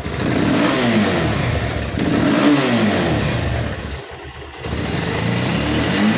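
Bajaj Pulsar 220F single-cylinder engine, just started, revved in repeated throttle blips that rise and fall, with a brief drop back to idle about four seconds in. The engine is being revved with the front fairing off to find where the front-end vibration comes from, and no panel rattle is heard.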